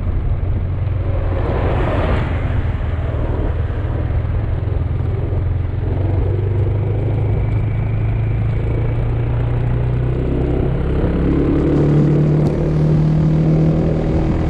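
Motor scooter engine running under way, heard from on board with wind and road noise. A brief rush of noise comes about two seconds in, and the engine note rises about eleven seconds in as it accelerates.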